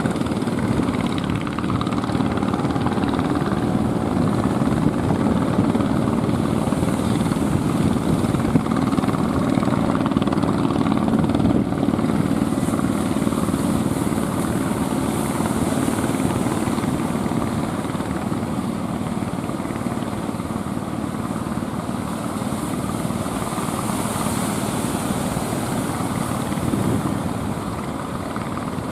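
Boat engine running steadily over the sound of surf, easing off slightly toward the end.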